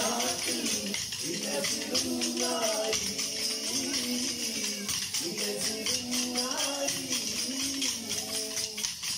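Kolkali stick dance: short wooden sticks clacked together in a fast, steady rhythm, over a sung melody.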